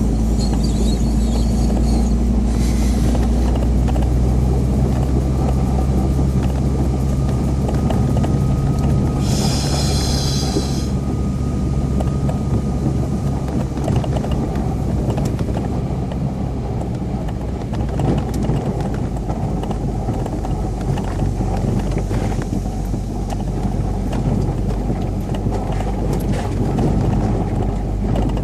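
UAZ Patriot engine running steadily, its pitch shifting as the revs change, with a heavy rumble. There is a brief noisy burst about ten seconds in.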